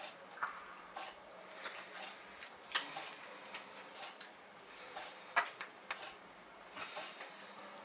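Faint handling noise from a pastry piping bag being squeezed as pastry cream is piped: irregular small clicks and rustles, a few a second, over a low steady hum.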